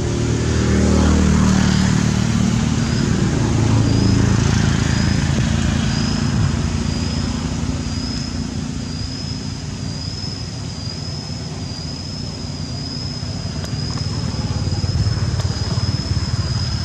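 An engine runs, its low pitch dropping at first and then holding steady. A high, wavering whine comes in about two seconds in and stays.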